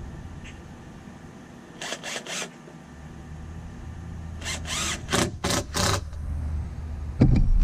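Cordless drill driving screws into a wooden box frame in short trigger bursts: three quick bursts about two seconds in, then about five more in a row. A loud thump near the end.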